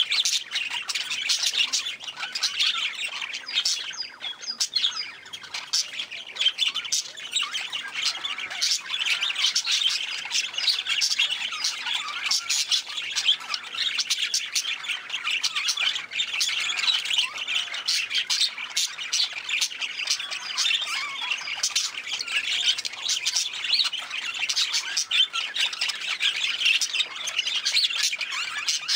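A flock of budgerigars chattering together, a dense, continuous mix of warbles, chirps and squawks from many birds at once.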